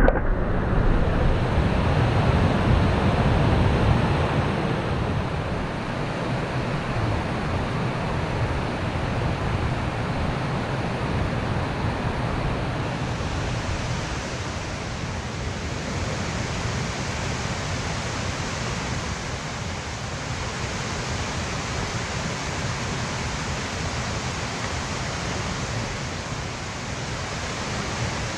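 Steady rush of fast-flowing stream water, louder for the first few seconds and then even.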